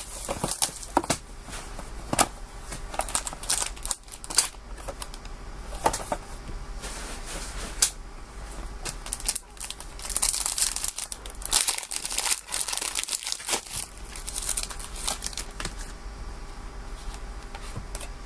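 A trading-card pack's wrapper being crinkled and torn open by hand: irregular crackling and rustling, busiest about two-thirds of the way through.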